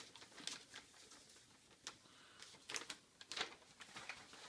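Faint, irregular rustling and light clicks of newspaper packing being unwrapped from drink cans.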